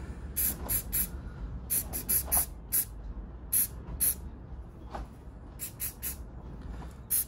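Aerosol spray paint can fired in many short squirts, a dozen or so, some in quick runs of two or three, each a brief sharp hiss.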